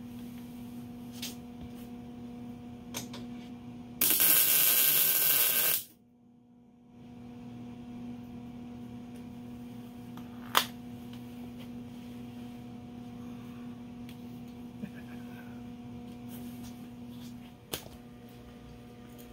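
Wire-feed welder humming steadily, broken about four seconds in by a loud, noisy tack weld lasting about two seconds. Two sharp clicks come later.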